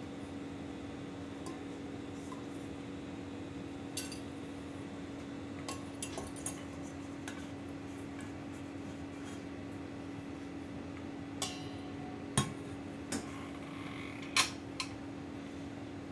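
Stainless steel mixing bowls and a spatula clinking against each other and against a steel counter: scattered short, sharp clinks, the loudest two near the end, over a steady low hum.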